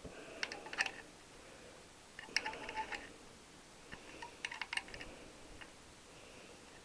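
Metal hand tools clinking and clicking in three short clusters, small metal-on-metal taps with a slight ring.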